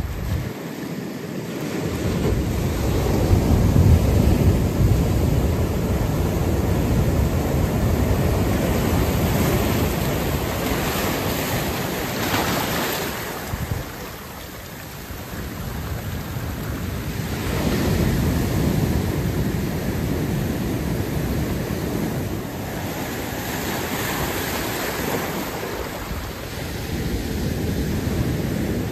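Ocean surf washing in over a rocky cobble beach, foaming water rushing between boulders and draining back. It swells and falls away in surges every several seconds.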